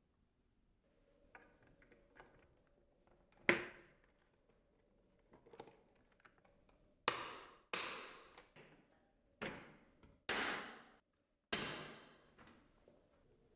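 A series of sharp knocks, six in all, each ringing out briefly. One comes about a third of the way in and the rest follow in the second half, roughly a second apart.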